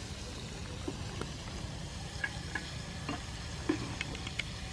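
Egg-and-flour battered squid rings deep-frying in a wok of hot soybean oil, a steady sizzle. A metal wire strainer scoops through the oil, with a few light clicks against the wok.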